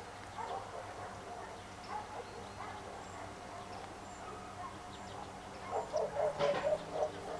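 A dog barking now and then, with a quick run of barks near the end, over a steady low background hum.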